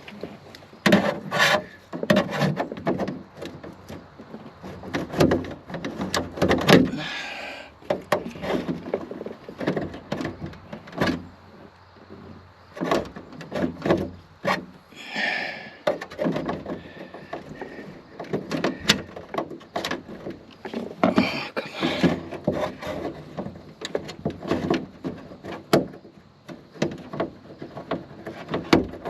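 Hands working plastic car parts: a washer hose and its fittings being pushed, twisted and handled, giving irregular knocks, clicks and rubbing, with a few short hissy scrapes.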